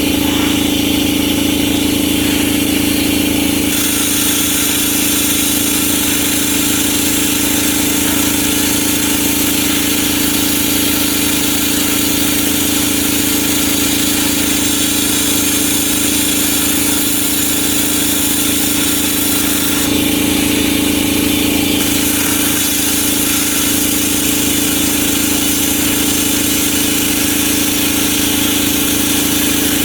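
Plasma cutter cutting 1/8-inch steel plate: a loud, steady hiss over a constant hum, its tone shifting around four seconds in and again around twenty seconds in.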